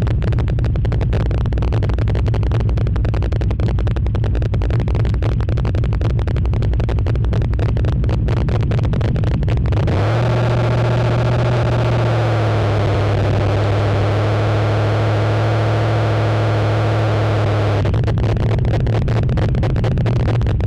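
Chevy V8 engine in a Nissan Frontier pickup running loud with a rough, choppy pulsing. About ten seconds in, a steady drone takes over and settles slightly lower in pitch after a couple of seconds. The choppy pulsing returns near the end.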